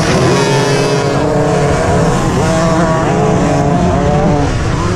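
Several kids' motocross dirt bikes revving hard off the start gate. The nearest engine is loud, and the engine notes climb and fall as the riders shift and race into the first turn.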